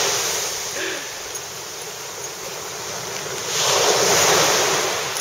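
Ocean surf breaking and washing up the beach, a wave surging louder about three and a half seconds in, with wind on the microphone.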